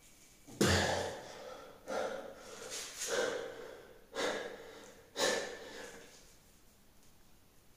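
A man breathing hard from exertion as he does push-ups: about five sharp, noisy breaths out, one every second or so, the first the loudest.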